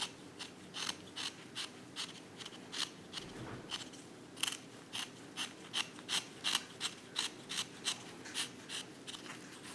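Carving knife slicing shavings off a walnut handle: a steady series of short, crisp cuts, about three a second, coming a little faster in the second half.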